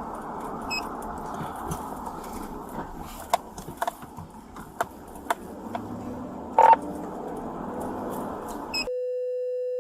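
Open radio channel: steady hiss cut off at the top, with scattered clicks and a short squawk. About nine seconds in, the hiss cuts out and a steady single-pitch tone comes in.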